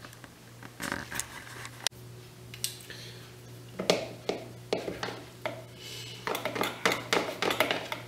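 Metal knife and fork scraping and clicking against a plastic bowl while cutting food, a scattered run of short strokes that thickens into a quick flurry in the second half, over a steady low hum.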